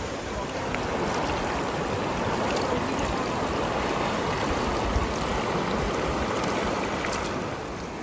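Shallow mountain river rushing over rocks: a steady wash of flowing water.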